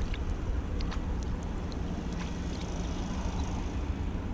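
Low, steady wind rumble on the microphone, with small water splashes and a few light clicks as a coin is rinsed in shallow lake water and rubbed between the fingers.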